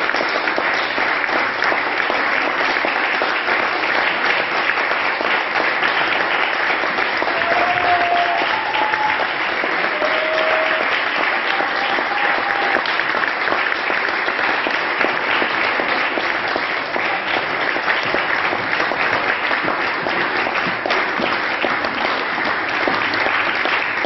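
Audience applauding steadily, a dense sustained clapping from a crowd.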